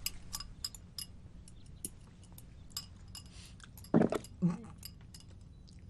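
Chopsticks clicking lightly against a ceramic bowl while someone eats, with scattered small clinks throughout. Two short throaty vocal sounds come about four seconds in.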